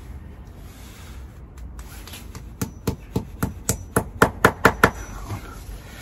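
Claw hammer tapping brown plastic wall plugs into drilled holes in brickwork: a quick run of about a dozen sharp taps, about five a second, getting louder, starting between two and three seconds in and stopping about five seconds in. The holes were drilled a size small so the plugs go in tight.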